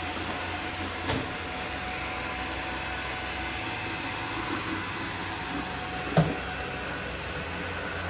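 Ecovacs Deebot N79S robot vacuum running steadily across a hard floor, with a light knock about a second in and a sharper bump about six seconds in as it drives into an obstacle at full speed. It does not slow down because its bumper sensor is broken.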